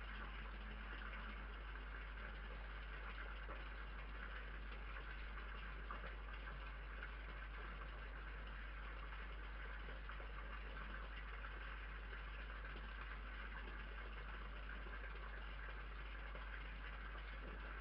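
Steady hiss and low hum from a night-vision security camera's microphone, with no distinct sounds standing out from it.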